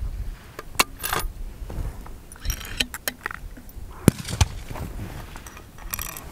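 A handful of sharp metallic clicks and clinks, spread over a few seconds, from a fullbore target rifle's bolt being worked after a shot: the spent case is extracted and the next round loaded. A low wind rumble on the microphone runs underneath.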